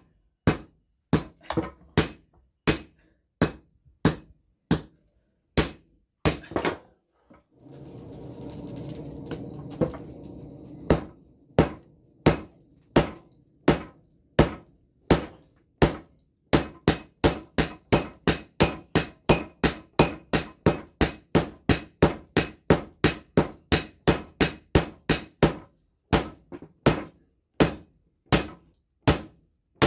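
Hand-forging a red-hot blade of very hard crusher-blade steel: hammer blows on the steel and anvil, about one and a half a second, then a steady rushing noise for about three seconds, then quicker blows, about two a second, each leaving a thin high ring. The steel is so hard that it barely moves under the hammer even while red-hot.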